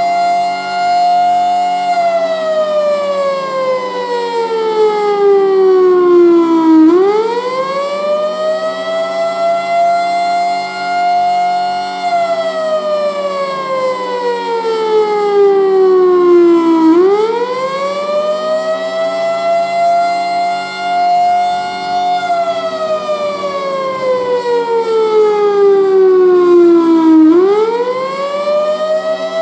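Federal Signal Thunderbolt 1000 warning siren, blower running, sounding the attack signal: a wail that climbs quickly, holds its high pitch for about five seconds, then slides slowly down over about five seconds, repeating about every ten seconds. A steady low hum runs underneath.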